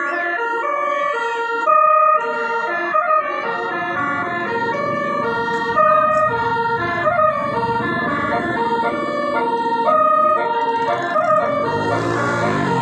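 Multi-tone telolet horn playing a melody in quick, steady organ-like notes, with a low rumble joining a few seconds in.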